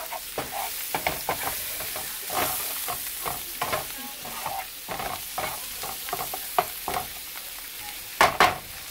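Oyster mushrooms sizzling in butter in a skillet while a spatula stirs them, scraping and knocking against the pan again and again, with a louder clatter near the end.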